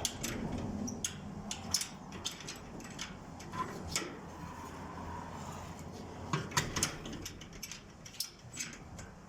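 Handling of a repaired garden gate: a series of light, irregular clicks and knocks with no heavy banging, the gate now fixed so it no longer wobbles.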